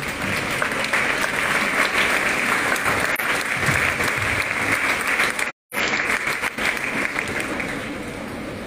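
Audience applauding: many hands clapping in a dense, steady patter that thins out toward the end. The sound cuts out completely for a split second a little past halfway.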